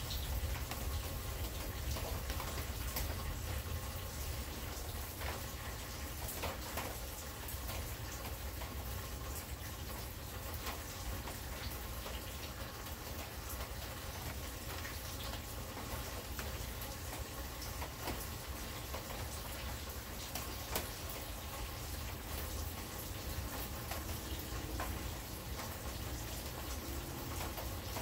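Rain falling during a thunderstorm, with scattered drop ticks over an even hiss and a steady low rumble underneath.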